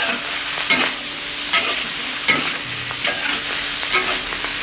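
Tofu sizzling in hot oil in a large wok as a metal spatula stir-fries it, scraping and turning the pieces about every three-quarters of a second.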